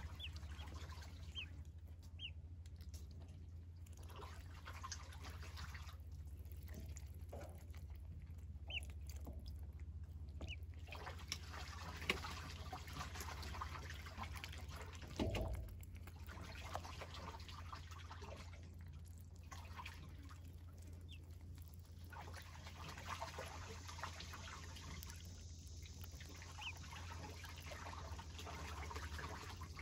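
Six-day-old Welsh Harlequin ducklings paddling and dabbling in a shallow metal tub of water: small splashes and drips, with a few brief, high peeps. A steady low hum runs underneath, and there is one dull bump about halfway through.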